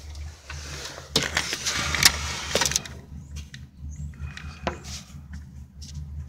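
Car engine running with a steady low rumble, heard up close under the car. About a second in comes a loud burst of scraping and rattling that lasts about a second and a half, with scattered knocks after it.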